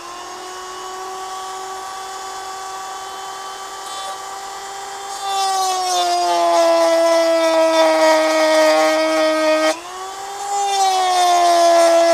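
Dremel rotary tool running with a high steady whine, then grinding into the steel blade of a Swiss Army knife from about five seconds in: the whine gets louder and drops slightly in pitch under the load, with a grinding hiss. Just before ten seconds it comes off the metal briefly, the pitch rising, then bites back in.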